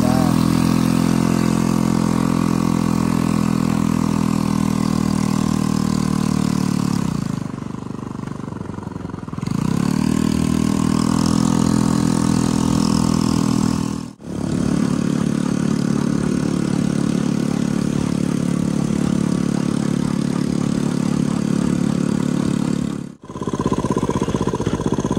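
Motorcycle engine of a bentor (motorcycle rickshaw) running under way. About seven seconds in it falls in pitch and eases off as the machine slows, then climbs back up as it picks up speed again. The sound drops out briefly twice.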